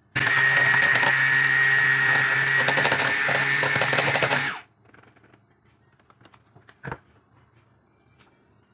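Electric hand mixer with twin wire beaters whipping egg whites and cream of tartar to a foam. It runs at a steady whine for about four and a half seconds, then is switched off. A single short knock follows a couple of seconds later.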